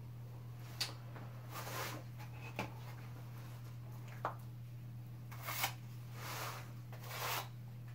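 Drywall knife scraping and smoothing joint compound on a ceiling drywall patch: a series of short, irregular scrapes and swishes over a steady low hum.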